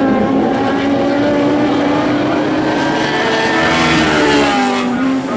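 Lightning sprint car engines running on a dirt oval, with the pitch climbing about three seconds in and dropping near the end.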